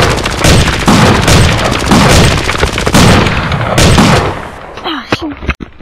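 Loud, rhythmic thumps and rustling on a handheld camera's microphone, about two a second, typical of the camera being jostled while its holder runs; they fade after about four seconds, and a short high voice sound comes near the end.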